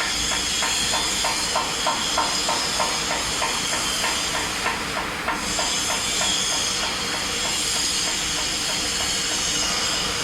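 CNC metal spinning machine running: a steady hiss with several high whining tones, and for the first half a regular series of short chirps, about three a second, which stop about halfway through.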